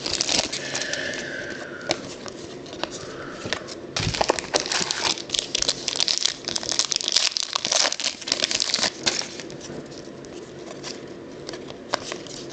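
Trading-card pack wrappers crinkling and being torn open while cards are handled, in irregular bursts of crackling.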